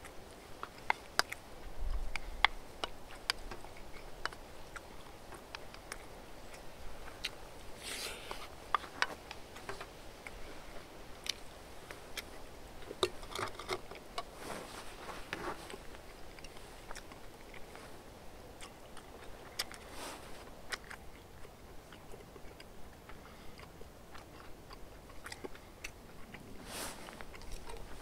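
Close-up chewing and biting of a stir-fried spicy pork and fresh vegetable leaf wrap: many wet mouth clicks, with a few louder crunches of the leaves.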